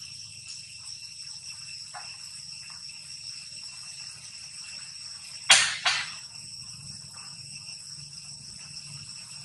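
Steady high-pitched drone of an insect chorus. A little past the middle, two short, loud, sharp sounds come about half a second apart.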